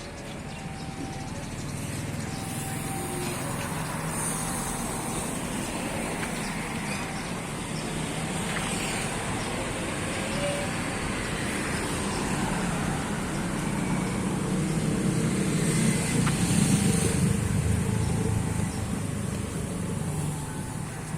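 Street traffic running steadily past, with one vehicle passing close and loudest about three quarters of the way through.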